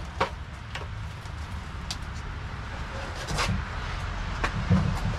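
Skateboard wheels rolling over a concrete driveway: a low rumble with scattered sharp clicks and knocks, loudest near the end as the board rolls close by.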